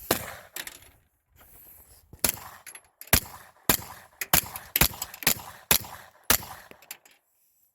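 Kel-Tec Sub-2000 9mm carbine fired semi-automatically, about ten sharp shots at an uneven pace, roughly half a second to a second apart, emptying a ten-round magazine.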